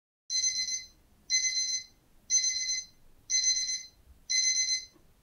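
Digital alarm-clock style beeping from a countdown timer, signalling that the time is up. It comes as high, rapidly pulsing beep bursts, about one burst a second, each lasting a little over half a second, starting just after the timer hits zero.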